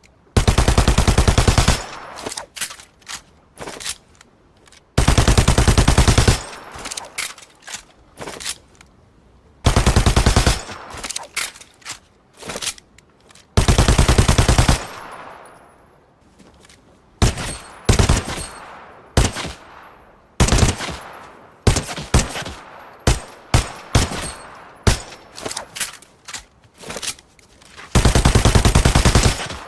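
Machine pistol firing on full automatic: five long bursts of about a second and a half each, with scattered single shots and short bursts between them.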